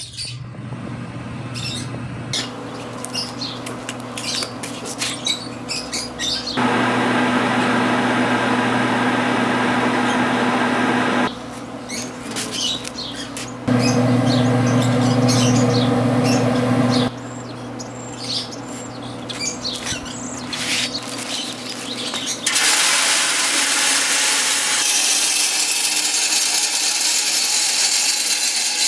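Pit Boss Pro Series 820 pellet grill starting up on the smoke setting: a steady motor hum from its fan and pellet auger, with two louder stretches of a few seconds each. About two-thirds of the way through a steady hiss sets in and runs on.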